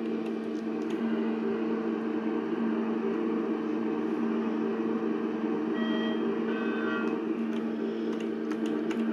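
Steady machine hum of a passenger lift in motion, with a short series of electronic beeps at several pitches about six to seven seconds in.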